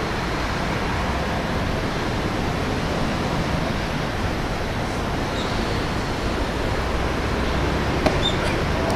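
Steady rushing wind noise on the microphone, with a single sharp knock about eight seconds in.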